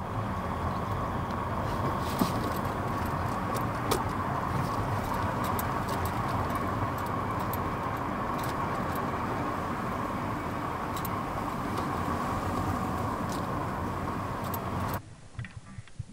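Car driving, heard from inside: steady road and tyre noise with a hum and scattered light clicks and rattles. About fifteen seconds in it cuts to a much quieter stationary cabin.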